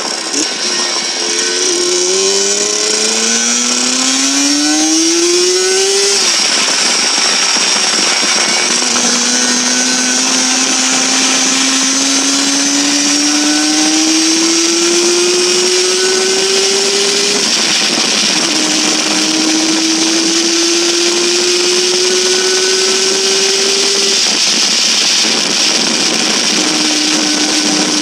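Suzuki GT two-stroke twin motorcycle engine accelerating through the gears, with wind and road noise. Its note climbs steadily in pitch, drops at an upshift, then climbs again, three upshifts in all.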